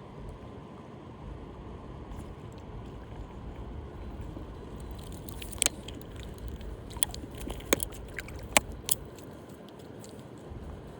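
Steady rush of river water, with a handful of sharp clicks and knocks about halfway through.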